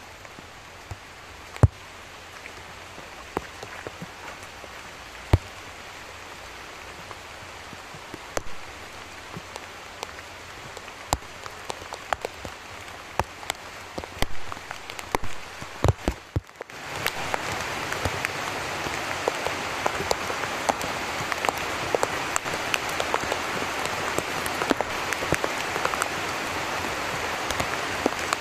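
Steady rain with scattered sharp knocks and splashes as a hoe digs into waterlogged mud. About sixteen seconds in, the rain becomes suddenly louder and denser, with many small drop ticks.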